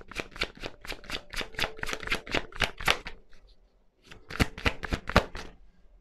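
A tarot deck being shuffled: a quick run of card slaps, about five a second, stopping about three seconds in, then a short second run of a few slaps.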